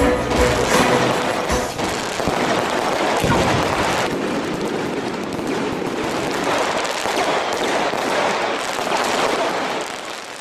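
Fireworks crackling in a dense, rapid stream of pops, fading out near the end.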